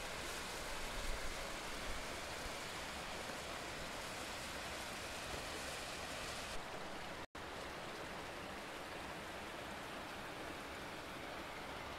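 Steady rushing of a mountain stream's water, an even hiss with no pauses except a split-second cut-out about seven seconds in.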